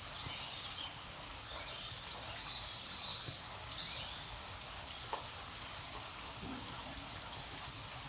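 Steady outdoor background hiss, with faint high chirps now and then in the first half and a single sharp click about five seconds in.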